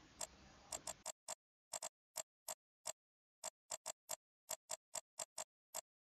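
Computer mouse button clicking faintly, about twenty short, sharp clicks at an uneven pace, some in quick pairs.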